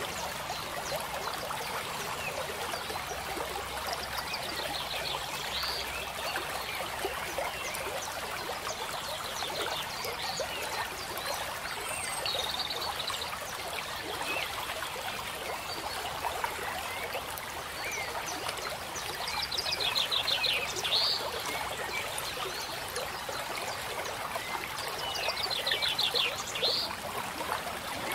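Small stream trickling steadily, with a short high trilled animal call that recurs four times, about every seven seconds.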